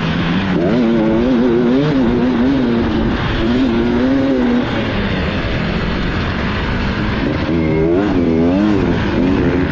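Beta enduro motorcycle engine under hard riding on a dirt track, its revs rising and falling repeatedly as the rider works the throttle through the gears.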